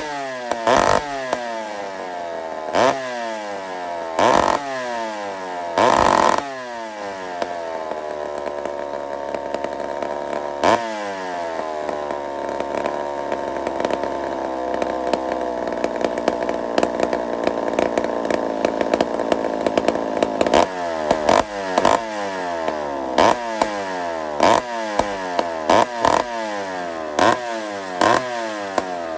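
McCulloch 797 two-stroke chainsaw running: revved hard a few times, then settling to a steady idle for over ten seconds, then blipped up to high revs about once a second near the end.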